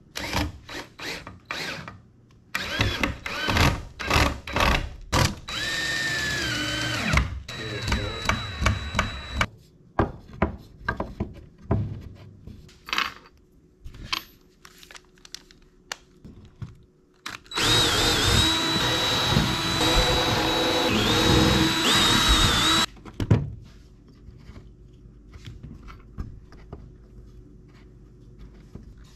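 DeWalt cordless drill/driver driving screws into pine boards: many short trigger bursts, then a run of about four seconds whose motor whine dips in pitch as the screw bites. A longer run of about five seconds comes later, with knocks and clicks of handling wood and screws in between.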